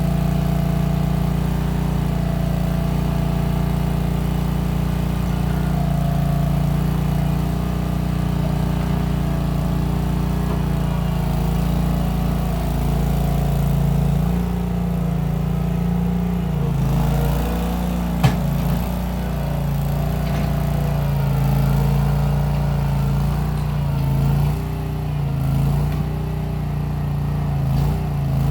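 Case 1816 skid steer's engine running steadily while the machine works dirt, its pitch dipping and recovering several times as the load comes on and off. A single sharp clank sounds a little past the halfway point.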